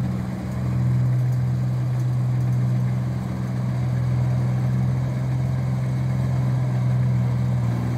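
Rice combine harvester's diesel engine running with a steady, even drone while it harvests.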